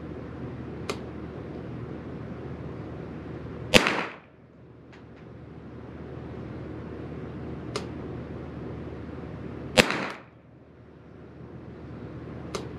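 Two shots from a Derya TM22 .22 LR semi-automatic rifle firing subsonic 60-grain Aguila Sniper Subsonic rounds, about six seconds apart, each with a short echo in the room. Several fainter sharp clicks fall between them.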